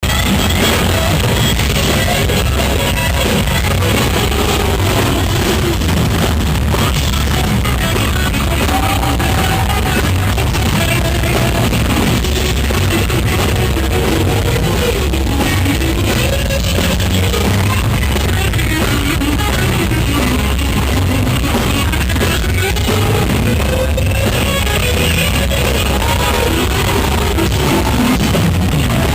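Live rock band playing loud, with an electric guitar solo over bass and drums; the live recording sounds rough.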